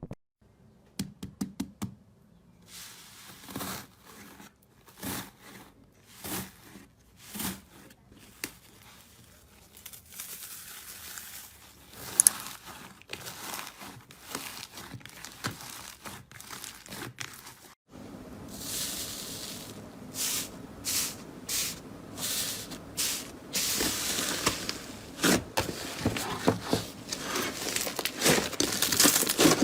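Slime being worked and pressed, giving short sticky crackling, popping and tearing sounds. After an abrupt cut about 18 seconds in, the crackling becomes denser and louder.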